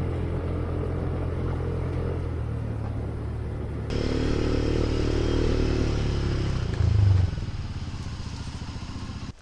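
Motorcycle engine running steadily under way. It grows louder about four seconds in and surges briefly near seven seconds.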